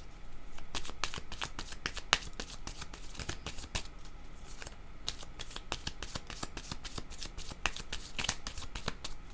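A small deck of cards being shuffled by hand: a rapid, irregular run of crisp card-on-card flicks and slaps, several per second, with no pause.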